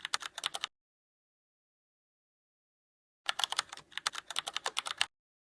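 Computer keyboard typing: two bursts of rapid keystroke clicks, the first stopping under a second in and the second starting about three seconds in and lasting nearly two seconds, with dead silence between.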